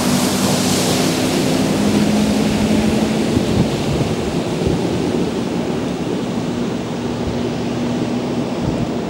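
Ski boat's engine passing close by with a rush of spray hitting the water and shore at the start, then the engine easing away as the wake washes in.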